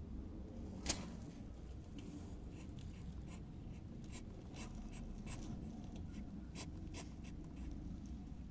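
Irregular light clicks and scratching, with one sharper click about a second in, over a low steady hum.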